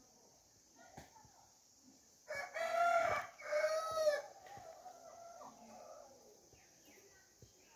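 A rooster crows once, about two seconds in: a loud, pitched call of about two seconds in two parts, trailing off into fainter notes.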